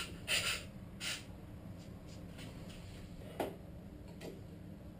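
Two short strokes of sandpaper rubbing on bare metal in the first second, then a light click about three seconds in, and a fainter one shortly after, as a clip is fixed to the part.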